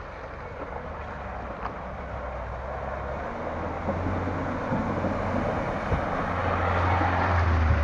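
A car's engine working hard under load as it climbs a steep off-road slope, growing steadily louder as it draws near.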